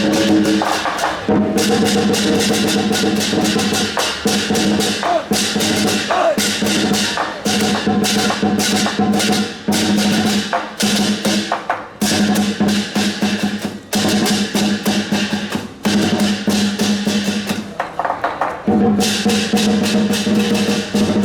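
Temple procession percussion band playing: drums, gongs and cymbals struck in quick, dense strokes over a sustained ringing tone, with short breaks between phrases.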